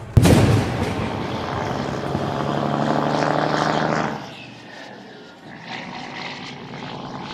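A machine engine comes in suddenly and runs loud with a steady drone that rises a little in pitch, then drops to a quieter running sound about four seconds in.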